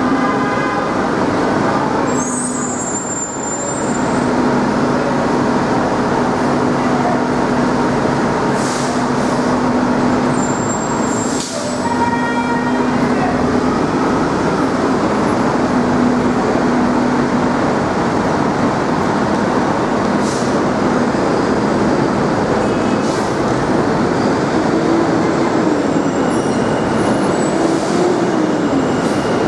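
Steady heavy-vehicle noise with a low, even engine hum, a few short clicks, and a brief rising-then-falling tone near the end.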